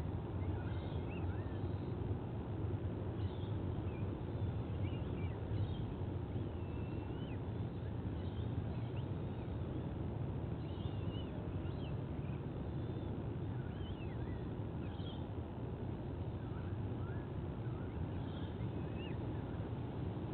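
Steady low background rumble, with many short bird chirps and whistles that rise and fall, scattered all through.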